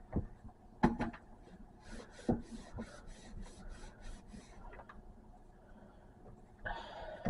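Damp cloth rubbing over the inside of a toaster oven to wipe out crumbs: a run of quick wiping strokes, about four a second, with a few light knocks of the hand against the oven.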